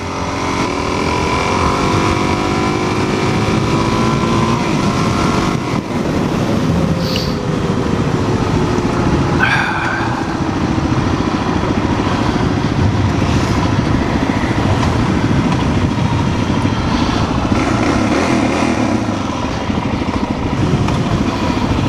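Suzuki DR-Z400's single-cylinder four-stroke engine running under way, heard from the rider's seat with wind rush. The engine pitch falls twice as the bike slows, once in the first few seconds and again near the middle.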